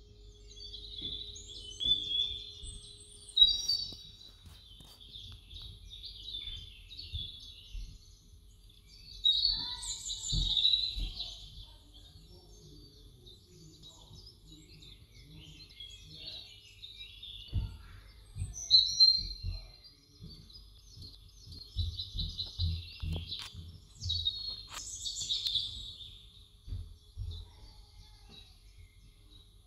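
Birds chirping and singing in several bursts of high, quick calls, with faint low knocks underneath.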